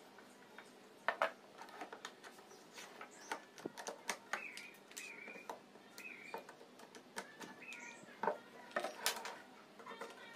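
Workbench handling: scattered clicks and knocks as a screwdriver is worked into wood blocks and quick-release bar clamps are squeezed shut on them. Four short, high squeaks come in the middle, each rising then falling.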